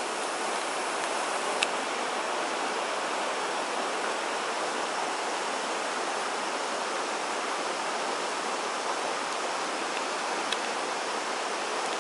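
Steady rushing noise with no pitch, with two faint sharp ticks, one about two seconds in and one near the end.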